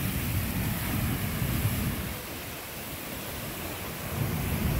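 Fan and Mortar Geysers erupting: a steady rush of water and steam with a low rumble that eases for a couple of seconds in the middle.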